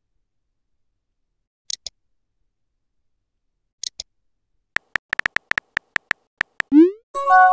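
Phone-keyboard typing sound effect: a quick run of about a dozen sharp taps late on, after two faint double ticks earlier. A short rising swoosh of a message being sent follows, and a chime tone starts just before the end.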